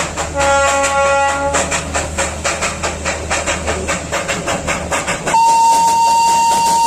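Darjeeling toy train steam locomotive chuffing in a quick, even rhythm of about five beats a second, with a short whistle of about a second near the start. A few seconds before the end the chuffing stops abruptly and a loud steady high tone takes over.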